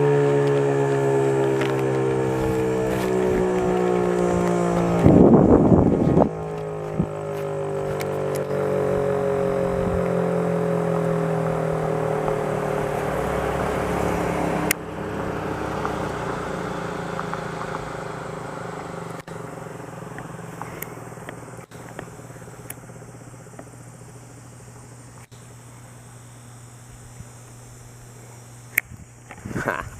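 Outdoor civil defense warning siren winding down after its test alert, its tone sliding slowly lower in pitch and fading away over about twenty seconds. A short loud rumble on the microphone about five seconds in.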